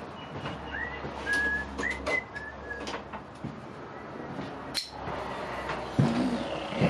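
A person whistling a few short notes, the first sliding up into its pitch, then a sharp click and a couple of knocks as tools are rummaged through while looking for pliers.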